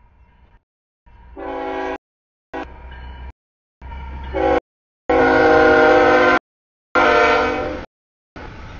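Freight diesel locomotive's air horn sounding a series of blasts over the rumble of the train, the longest and loudest two a little past the middle.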